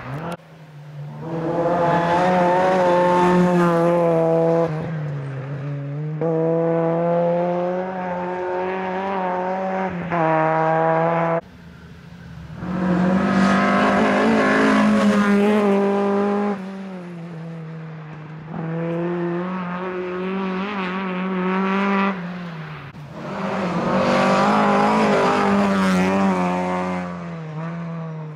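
Several rally cars' engines running hard at high revs as the cars pass one after another. There are three loud passes, each a few seconds long, with the pitch wavering as the throttle is worked.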